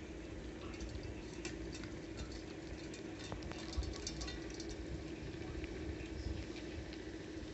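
Cats chewing fish from a steel plate: a run of small wet clicks and smacks, most of them in the middle few seconds, over a steady low hum.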